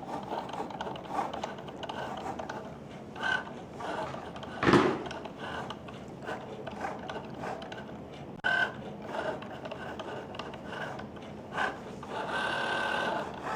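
Cricut Joy Xtra cutting machine running a cut: small motors whirring as the blade carriage and material move, with scattered clicks and a louder knock about five seconds in. Near the end a steadier, higher motor whine sets in.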